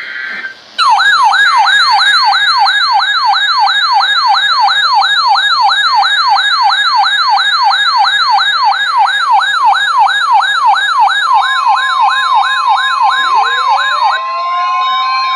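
Electronic siren warbling fast and evenly, its pitch sweeping up and down about three times a second. A steady alert tone joins it for its last few seconds, and a rising sweep begins just before the warble cuts off.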